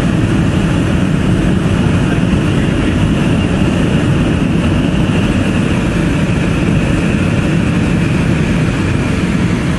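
Steady, loud cabin rumble of a Boeing 707's jet engines and rushing airflow, heard inside the fuselage. It is a deep, even roar with a faint higher whine over it, as the plane flies low with its flaps extended.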